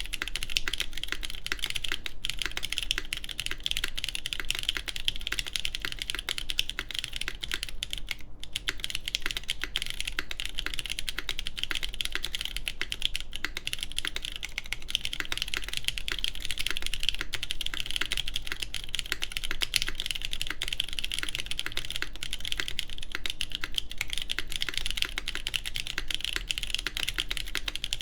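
Continuous fast typing on a Tech Bear TB8-TKL mechanical keyboard with lubed JWK Cotton Candy linear switches, GMK keycaps and an aluminium plate: a dense stream of key clacks with a short pause about eight seconds in.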